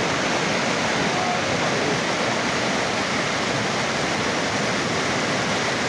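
Fast-flowing floodwater rushing and churning in a steady, unbroken noise.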